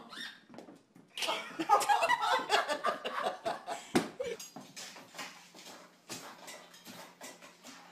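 A small dog wearing boots stepping clumsily on a hardwood floor: a quick, uneven clatter of taps from the boots.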